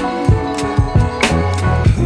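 Background pop music with a steady drum beat and guitar.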